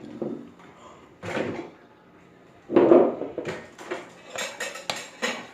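Kitchen dishes and utensils clattering as they are handled: a couple of separate knocks, then a quick run of clinks and clicks in the second half.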